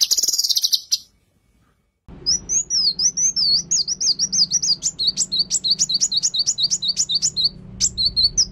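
Caged songbird calling: a dense burst of high chirping in the first second, then after a short pause a fast run of repeated high swooping notes, about four a second.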